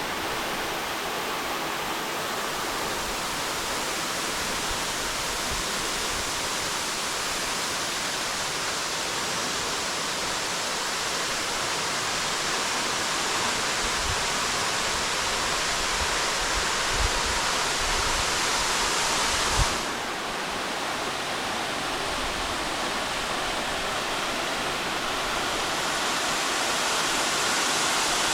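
Waterfall: steady rushing, splashing water. Its sound shifts slightly about two-thirds of the way through, just after a couple of brief low bumps.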